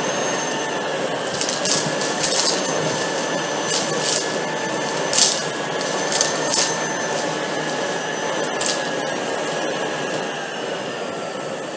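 Tineco PURE ONE S11 cordless vacuum, used as a handheld with its crevice tool, running steadily with a high motor whine while it sucks debris up off carpet; bits of dirt rattle and crackle up the tool in several short bursts. The run eases off near the end.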